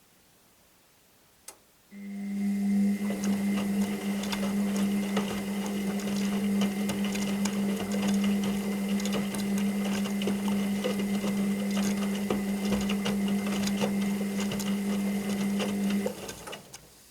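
Washing machine motor starting after a single click, running with a steady hum, a high whine and a patter of ticks for about fourteen seconds, then stopping and dying away: one stretch of the drum turning during the wash cycle.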